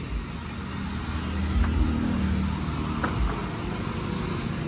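A motor vehicle's engine running steadily, growing louder about a second and a half in and easing off a little towards the end.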